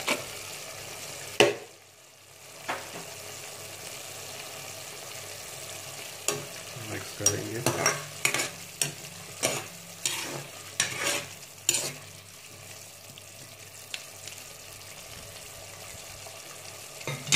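Diced potatoes and tomatoes simmering and sizzling in oil and water in a metal pot, with a spoon clinking and scraping against the pot as it is stirred, mostly between about six and twelve seconds in. A sharp knock comes about a second and a half in.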